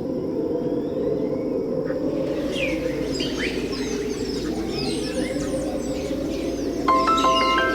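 Birds chirping with many short quick calls over a steady rushing background. Near the end, music with struck mallet notes like a marimba comes in.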